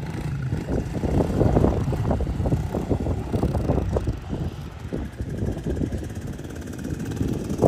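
Wind buffeting the microphone in uneven gusts, with a motor vehicle's engine running underneath.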